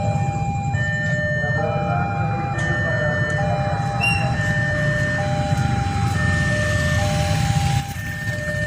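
Railway level-crossing warning alarm sounding a steady two-tone alternation, switching pitch about every three-quarters of a second, over a continuous low rumble.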